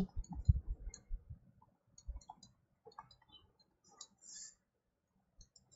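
Faint clicks and taps of a stylus on a tablet screen as words are handwritten, with a few soft low thumps in the first second or so.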